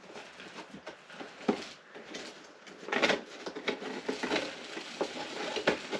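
Rustling and light taps of a Lego instruction booklet being handled and its pages turned, with a louder rustle about three seconds in.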